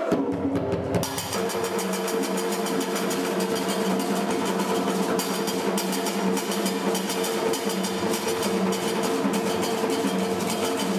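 Ensemble of tall wooden hand drums playing a fast, driving rhythm. A few opening strikes lead into full playing about a second in, with a steady low tone held underneath.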